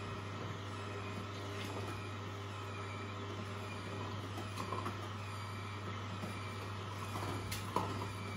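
Angel stainless-steel twin-gear juicer running with a steady low hum while fruit is pushed down its feed chute with a wooden plunger. There are a few crackles about halfway through and a sharp click near the end.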